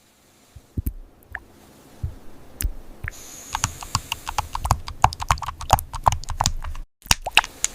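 Typing on a computer keyboard: a few scattered keystrokes, then a fast run of clicks from about three seconds in that breaks off for a moment near the end before more keystrokes.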